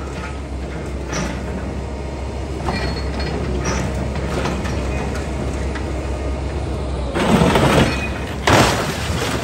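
Scrapyard grapple machine's engine running with a steady low hum while the claw holds a pickup truck aloft, with a few faint knocks. Near the end, two loud crashes as the truck is flung and lands on the scrap-car pile.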